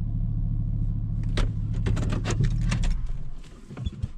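Pickup truck's cab on a sandy dirt road: a steady low engine and tyre rumble with a run of sharp rattles and knocks, the rumble falling away near the end.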